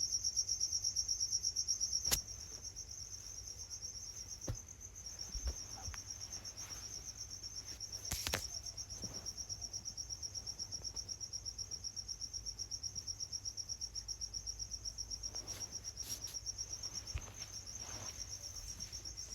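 Insects chirping in a steady, rapid pulsing trill, with a few scattered light clicks and knocks from hand tools as the head nuts are fitted.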